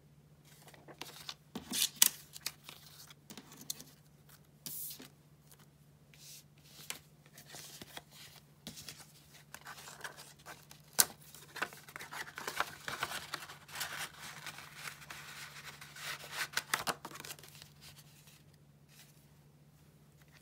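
Close-up paper handling: a postcard and kraft paper envelopes being picked up, turned over and set down, with rustling, crinkling and a few sharp taps. The rustling thickens about halfway through and dies away near the end.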